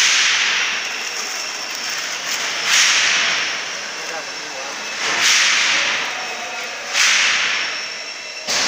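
Masking tape being ripped off the roll: about five rasping pulls a couple of seconds apart, each starting sharply and fading over about a second.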